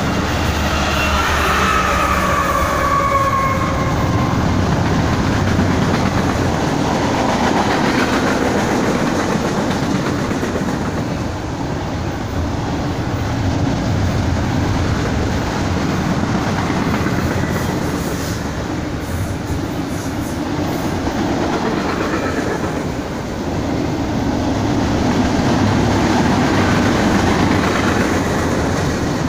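Double-stack intermodal freight train passing close by: its last locomotives and then a long string of container well cars, with a steady rumble and clatter of wheels on rails. A falling whine sounds in the first few seconds.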